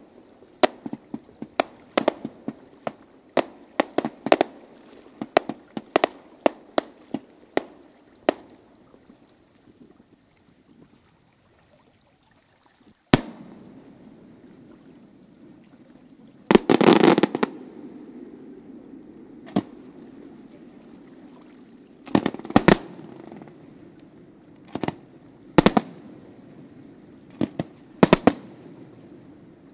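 Fireworks display: a fast string of crackling pops for the first eight seconds or so, then a lull, then a sharp bang about 13 seconds in, a dense volley of bursts around 17 seconds, and single loud shell bursts every few seconds after that.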